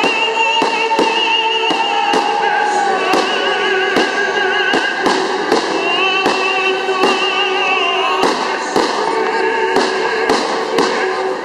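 Fireworks bursting in quick irregular succession, several bangs a second. Under them, music with a singer's voice in wavering, vibrato-laden held notes.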